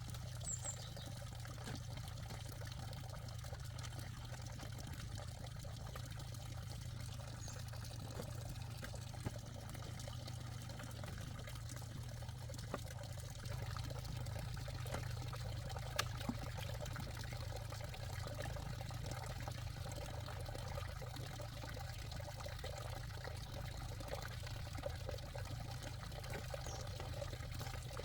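Water pouring and trickling steadily, a little louder from about halfway through.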